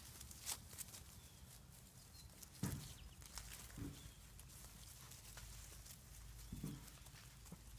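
Six-week-old Labrador puppies playing rough on grass: light scuffling and rustling, with three brief puppy vocalisations spread through it, the first the loudest.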